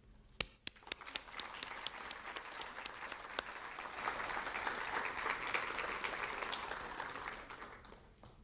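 Audience applauding: a few separate claps at first, swelling into steady applause that fades out near the end.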